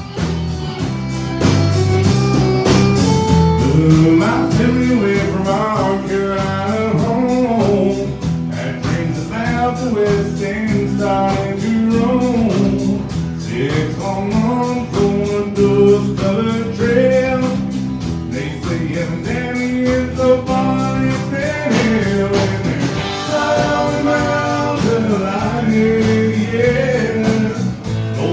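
Live country band playing: a man singing lead over acoustic and electric guitars, fiddle and drums, with a steady beat.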